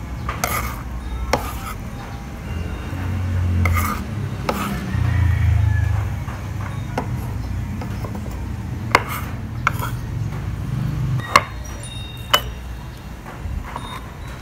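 Chef's knife and ceramic ramekin clicking and knocking on a wooden cutting board as chopped onion is scraped into the ramekin: a handful of sharp knocks spread through, the sharpest about eleven seconds in, over a steady low rumble.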